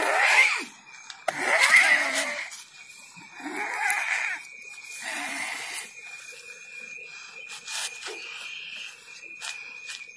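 A man in a trance-like state makes four forceful, hissing, wheezing breaths in the first six seconds, with a steady high whine underneath.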